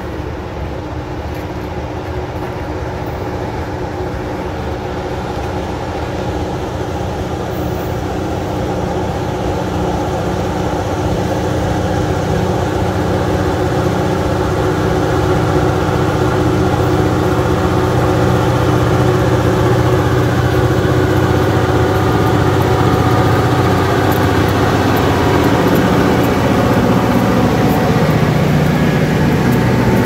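Freight cars rolling past on the rails while the diesel engines of approaching EMD locomotives grow steadily louder, their low engine drone strongest near the end.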